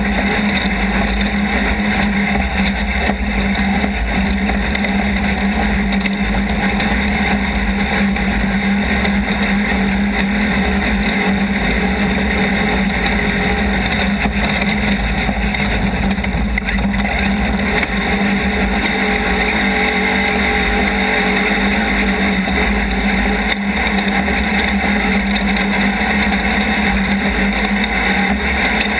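Off-road race vehicle's engine running hard at a steady pitch for the whole stretch, over a rough, uneven low rumble.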